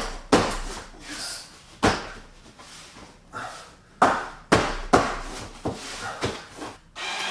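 Wooden roof boards being knocked into place with a series of about eight sharp, irregular blows, each with a short ring, some close together around the middle.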